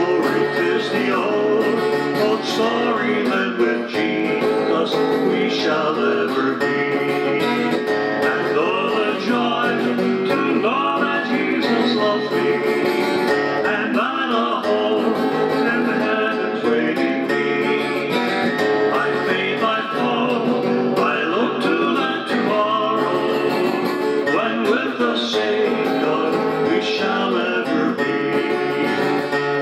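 A man singing a gospel song, accompanying himself on a strummed acoustic guitar.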